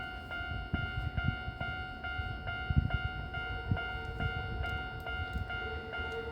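Japanese railway level-crossing warning bell ringing, an electronic ding repeating evenly a little over twice a second, with low uneven rumbling underneath. A lower steady tone joins about three seconds in and grows louder.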